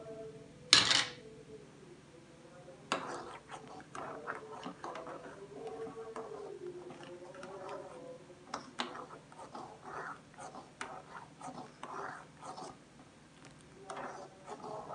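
Steel spoon stirring custard in a metal pan, with irregular clicks and scrapes of the spoon against the pan, stirred without pause so lumps don't form as it thickens. One loud knock of metal about a second in.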